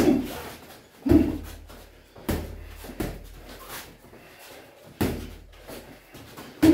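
Boxing gloves thudding as punches land in heavyweight sparring: a handful of sharp, separate thuds about a second or more apart.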